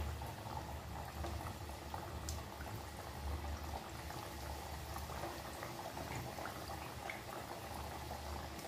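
Mathri dough pieces deep-frying in hot oil in a steel kadhai: a steady bubbling sizzle with many small crackles, the batch just dropped in.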